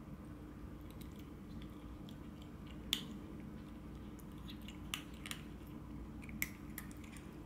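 A kitten eating dry kibble from a bowl: small, irregular crisp crunches, the sharpest about three seconds in, over a low steady hum.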